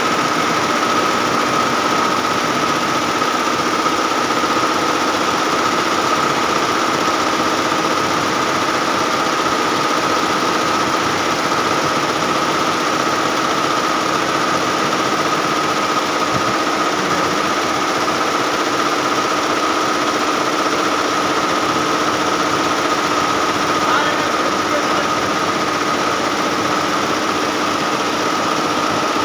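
Multi-head computerized embroidery machines stitching: a steady mechanical running din with a constant high tone over it.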